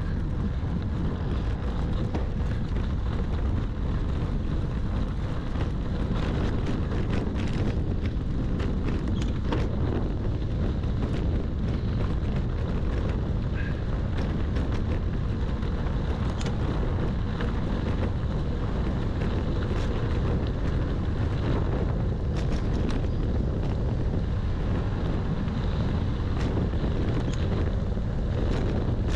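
Steady low wind rumble on the microphone of a bicycle riding a dirt road, mixed with tyre noise on the dirt and scattered light clicks.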